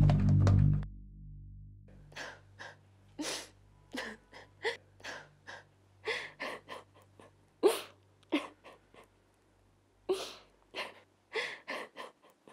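A woman sobbing in short, gasping breaths and sniffs, a dozen or more uneven catches of breath. Low music fades out in the first second.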